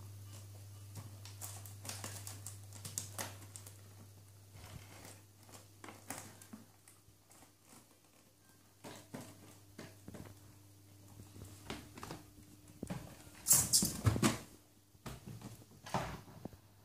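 A cardboard toy box being handled by a child: scattered rustles, taps and scrapes, with a louder cluster of knocks and scrapes about thirteen to fourteen seconds in as the box goes into a plastic cupboard.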